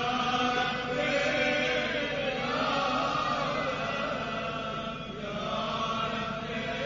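Devotional chanting voices, drawn-out and wavering in pitch, with no clear words.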